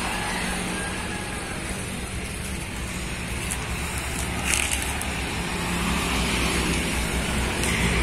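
Steady low rumbling background noise outdoors, with no distinct event standing out.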